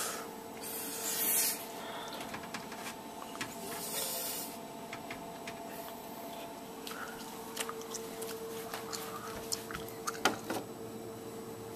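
Quiet handling sounds: ceramic ramekins scraping and clicking against a metal baking sheet, with cloth rubbing in a couple of short swells. A faint steady hum runs underneath.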